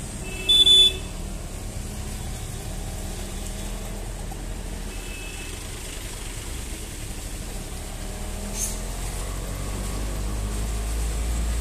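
Vehicle engine running steadily while driving through flood water on the road. About half a second in a vehicle horn gives one short loud beep, and a fainter horn sounds around five seconds in.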